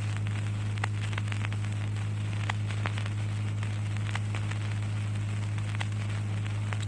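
Background noise of the recording in a pause of the recitation: a steady low electrical hum with hiss and scattered small crackles and clicks.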